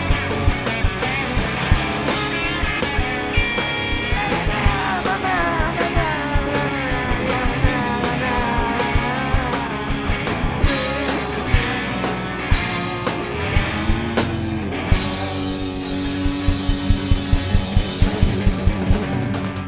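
A cowpunk rock band playing live, an instrumental stretch without vocals: an electric guitar lead with bending, wavering notes over bass and drums, then a run of fast, closely packed drum hits near the end.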